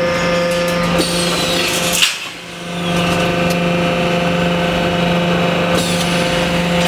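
Steel grating welding machine running: a steady machine hum, with sharp knocks about one and two seconds in and a brief drop in level just after the second knock.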